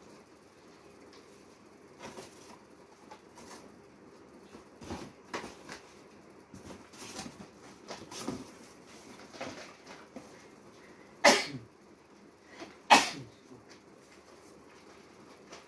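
Cardboard cartons being handled and shifted on metal shelving: scattered rustles and scrapes, with two louder sharp noises about a second and a half apart late on.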